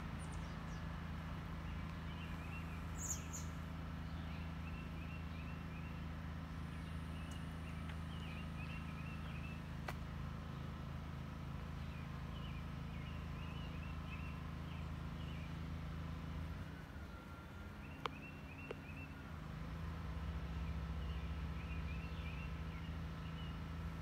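Small birds chirping in short, repeated bursts over a steady low hum, with two faint clicks, one about halfway through and one later.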